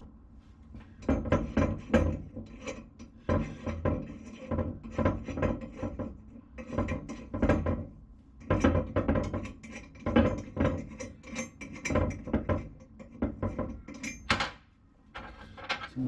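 Hand ratchet wrench clicking in quick runs of strokes, with short pauses, as it turns the nuts that hold down a car battery tray.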